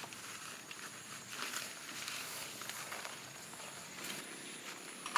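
Faint rustling and scattered soft knocks and footsteps of people handling camping gear, with a faint steady high-pitched whine in the background.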